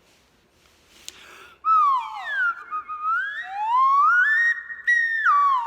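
A faint click about a second in, then a whistled note that slides down, rises to a high held pitch and drops again near the end.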